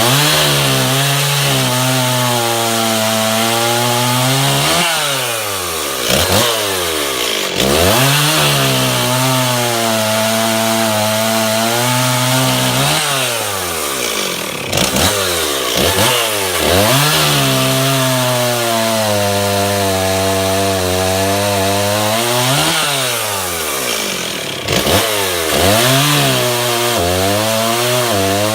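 Stihl MS360 Pro two-stroke chainsaw with an 18-inch bar and .325 chain cutting wood at full throttle. The engine pulls down in pitch under load through each cut, then revs back up as the chain comes free, about four cuts in a row.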